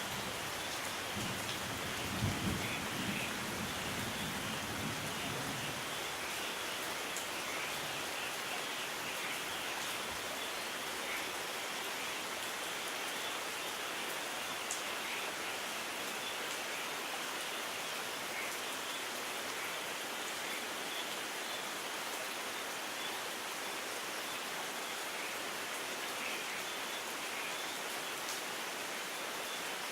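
Steady, even rain. A low rumble sits under it for the first few seconds, loudest about two seconds in, then fades out.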